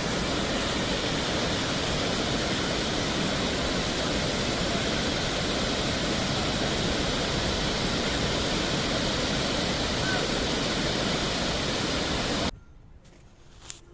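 Kempty Falls' waterfall pouring, a steady rushing noise that cuts off suddenly near the end.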